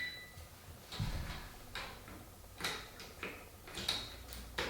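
Scattered light clicks and taps, about six in a few seconds, from handling a non-contact voltage tester around the ceiling fan's wires. The tester gives no alert, a sign the circuit is dead.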